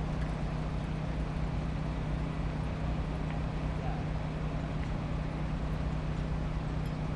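Murmur of a large crowd over the steady rumble of a big wooden structure burning, with a steady low hum underneath.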